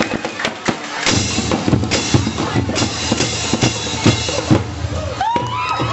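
Marching band drum section playing a steady beat on bass drum and snare drums, with a crowd cheering and shouting about five seconds in.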